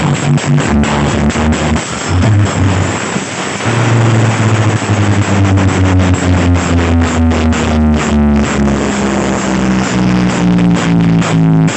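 Loud electronic music with heavy bass and a steady beat, played over a large sound system.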